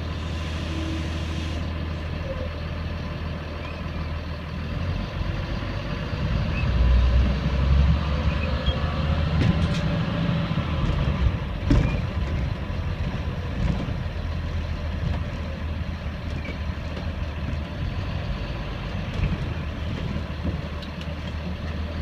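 2005 Blue Bird Vision school bus's diesel engine running as the bus drives, heard from the driver's seat; the engine gets louder for a couple of seconds about six seconds in. A single sharp knock about halfway through.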